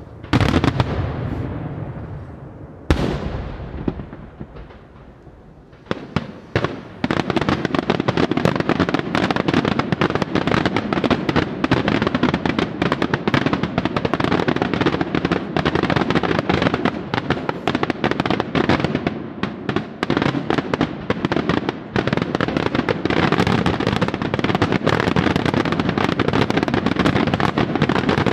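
Daytime aerial fireworks: two heavy shell bursts bang in the first three seconds and echo away. Then, from about seven seconds in, a dense, continuous crackling of rapid small reports from glittering crackle bursts runs on.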